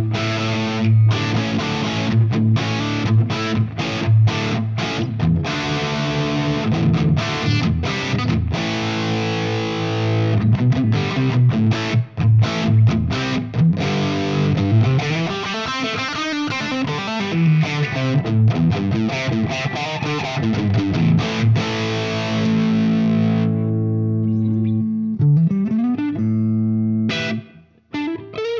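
Epiphone Korina Explorer electric guitar played with heavy distortion through a Tonex amp-modeler profile. It opens with choppy chord hits and short stops, moves into sliding, bending single-note lines, and turns less bright in the last few seconds, with a brief break near the end.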